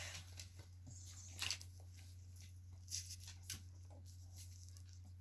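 A quiet room with a steady low hum and a few faint scattered clicks and taps.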